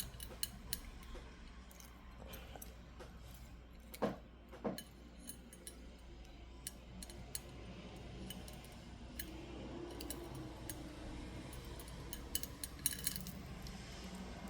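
Scattered light clicks and taps of stone beads, jewelry wire and small tools being handled while a bracelet is reworked, with two louder knocks about four seconds in and a quick run of clicks near the end.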